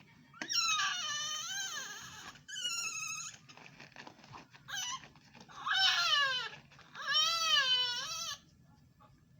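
Newborn baby crying in a series of high-pitched wails, each up to about two seconds long, with short pauses between them.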